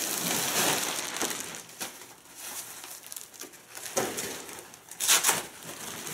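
Plastic packaging and crumpled packing paper rustling and crinkling as a folded pop-up fabric play tunnel is lifted out of its cardboard box, with a couple of sharper rustles about four and five seconds in.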